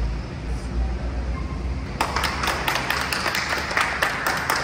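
A group applauding: dense hand clapping that starts about two seconds in and runs for nearly three seconds. Before it there is a low rumble.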